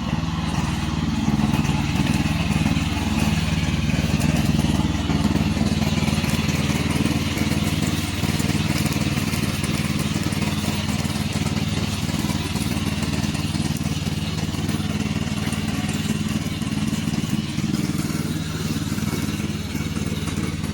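Engine of a remote-control slope mower running steadily, a low mechanical drone with a hiss above it and little change in level.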